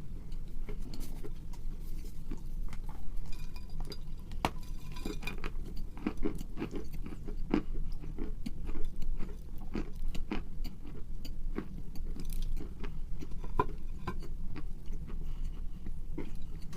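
Close-miked biting and chewing of hard chalky pieces: irregular sharp crunches and crackles, several a second, with a steady low hum underneath.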